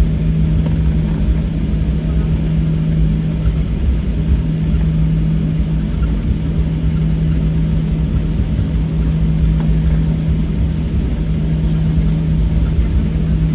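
Steady cabin noise inside a Boeing 737-700 taxiing on the ground: a constant low hum over a rumble from its CFM56-7B engines at taxi power and the wheels rolling.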